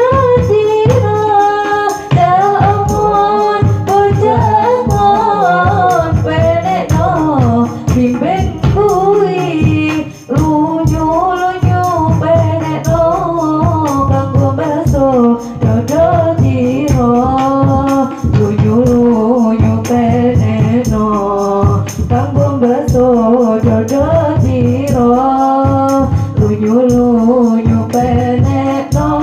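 A woman singing a sholawat devotional song through a microphone, her melody sung with ornate, bending runs, accompanied by a rebana ensemble of frame drums and jingling percussion playing a steady beat.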